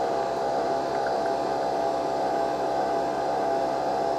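Breville Nespresso Vertuo Next capsule machine brewing: a steady mechanical whirr with a fast, even low pulsing underneath.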